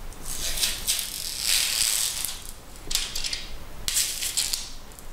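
Protective plastic film being peeled off a smartphone and crinkling: one long rustling burst, then two shorter ones near the end.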